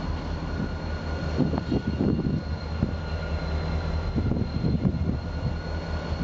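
CP Rail EMD SD40-2 diesel locomotives running at low throttle as they move slowly: a steady low engine drone with uneven rumbling, and a faint steady high whine over it.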